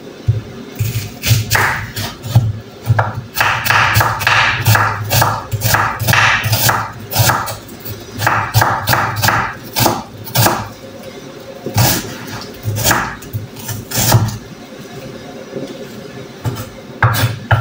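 Kitchen knife chopping garlic and onion on a cutting board: irregular knocks in quick runs with short pauses between them, and a quieter stretch near the end.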